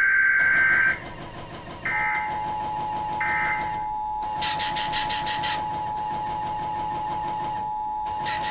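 Emergency Alert System tones. A burst of warbling data tones ends about a second in. From about two seconds in the steady two-tone EAS attention signal sounds, and further short buzzy data bursts play over it.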